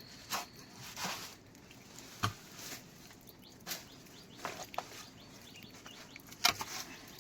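Scattered, irregular taps and clicks, a few each second at most, over a faint steady hiss; the loudest is about six and a half seconds in.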